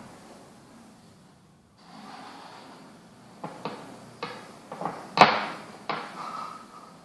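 A run of light wooden knocks and clicks, about seven in a few seconds with the loudest just past the middle: makruk pieces being moved and set down on a board.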